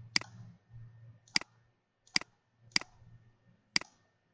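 Five sharp computer mouse clicks, unevenly spaced about a second apart, over a faint low hum in the first second or so.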